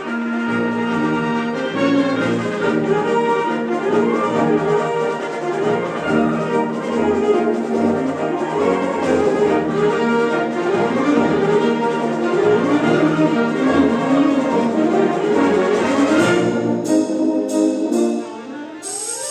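A concert wind band plays a full, brass-heavy passage with sustained chords and moving lines. About three-quarters of the way in the texture thins, with a series of light, sharp percussion strikes on top. Near the end a quick rising run leads into the next phrase.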